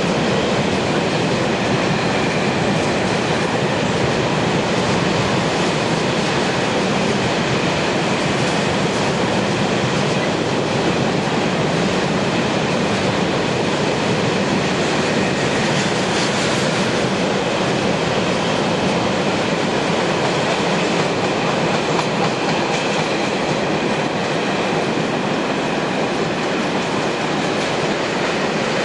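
Container freight train wagons rolling past: a steady, continuous noise of steel wheels running on the rails.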